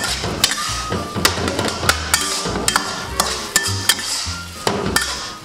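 Metal spatula clanking and scraping against a wok in a run of irregular sharp knocks while tomato and scrambled eggs are stir-fried, over background music with a low bass line.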